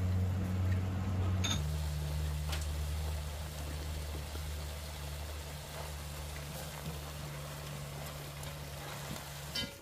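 Steady low motor hum that drops to a lower pitch with a click about one and a half seconds in, then cuts off just before the end.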